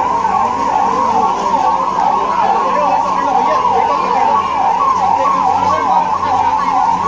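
Electronic emergency-vehicle siren sounding steadily in a fast warble, its pitch sweeping up and down about three times a second.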